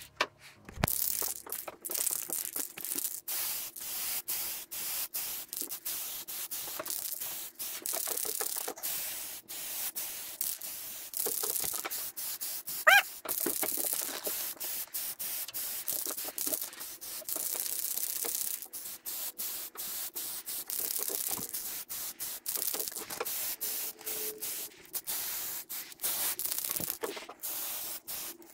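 Hissing, rubbing noise of hand work on a surface, in short stop-start stretches broken by many brief gaps. About 13 seconds in, one louder sharp sound with a rising squeak.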